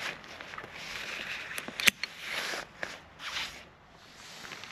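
Ripstop polyester rainfly rustling as it is handled, with a sharp metallic click about two seconds in from a carabiner being clipped through the tarp's corner loop. The rustling fades near the end.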